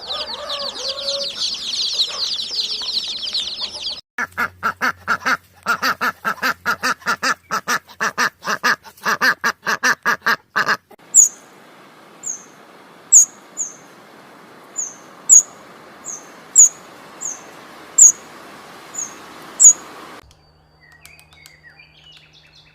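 Farm and pet birds calling in turn. First a dense chorus of high peeping, then a rapid run of evenly spaced calls for several seconds, then single sharp, very high chirps every second or so over a steady hiss, fading to faint sound near the end.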